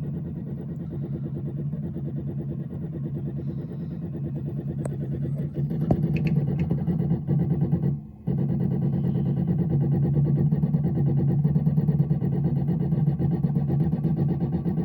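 Miracle A9 key cutting machine running its decoding cycle, its motors buzzing steadily as the probe steps along and taps the original house key to measure its cuts. The hum breaks off briefly about eight seconds in and starts again, with a few light ticks shortly before.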